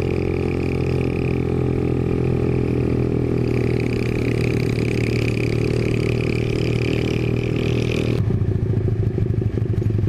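Single-cylinder four-stroke engine of a 1997 Honda GL Pro motorcycle running steadily under way. About eight seconds in, the note drops a little and its beat becomes slower and more distinct.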